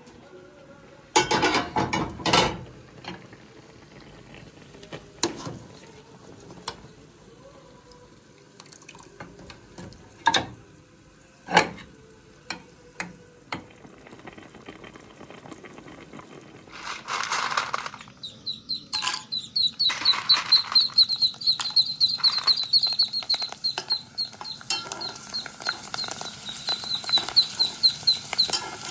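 Kitchen handling sounds: scattered clinks and knocks of pots and utensils, with two short splashing, pouring sounds. About two-thirds of the way through, a fast, continuous run of high chirps begins and carries on.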